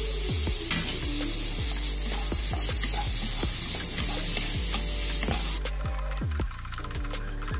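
Sliced onions and green chillies sizzling in hot oil in a wok-style pan while a wooden spatula stirs them, scraping and knocking against the pan. The sizzle quietens about two thirds of the way through.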